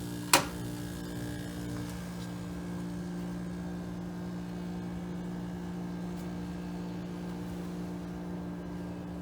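A GE Super Thrust air conditioner is switched on with one sharp click of its control switch about half a second in. Then it runs with a steady, even hum and a quiet fan.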